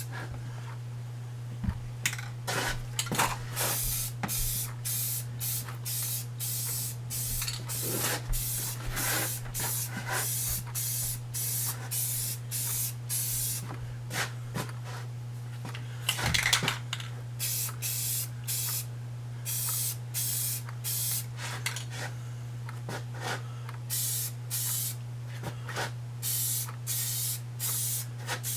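Aerosol spray-paint can sprayed in many short bursts: a hiss in quick repeated spurts with brief gaps, over a steady low hum.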